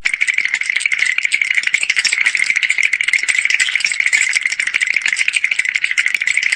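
Cartoon sound effect of a fast, even rattle: a dense stream of fine clicks held steady for several seconds.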